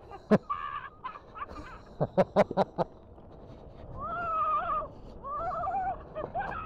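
Mountain cart brakes squealing in several short, wavering bursts. About two seconds in there is a quick run of sharp knocks and rattles.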